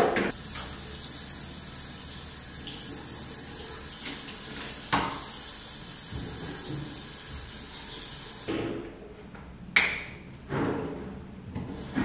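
Running water, a steady hiss that stops suddenly about eight and a half seconds in; a few short knocks follow.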